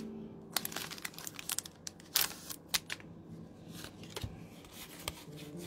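Foil Pokémon booster pack wrapper crinkling and being torn open by hand: irregular sharp crackles, loudest in the first three seconds and thinning out toward the end.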